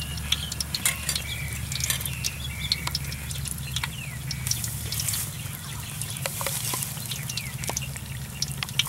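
Battered banana fries deep-frying in a wok of hot oil: a steady sizzle with frequent crackles and pops, over a steady low hum.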